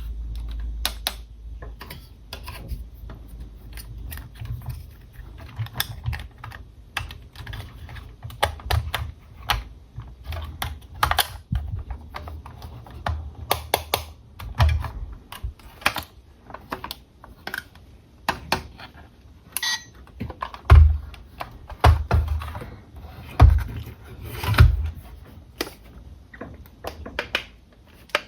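Hands unboxing toy RC cars: irregular clicking and tapping of plastic parts and packaging, with a few louder thumps about two-thirds of the way through.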